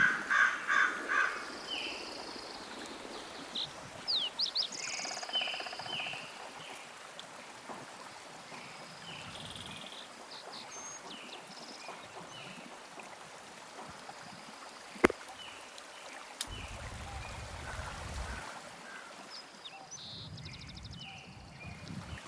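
Outdoor ambience: short repeated bird chirps over a steady rushing hiss like a stream. There are a few louder sounds in the first two seconds and one sharp click about two-thirds of the way through.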